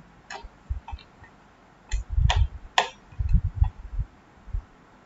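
Irregular soft low knocks with a few sharp clicks: handling noise from working the pen-and-tablet setup while the whiteboard page is scrolled.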